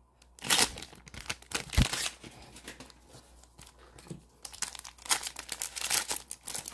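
A plastic trading-card pack wrapper being crinkled and torn open by hand, in bursts of crackling that grow denser over the last two seconds. There is a single dull knock a little under two seconds in.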